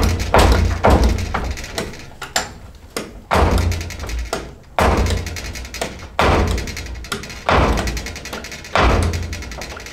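Background music with deep, thudding percussion hits about every second and a half over a bass line.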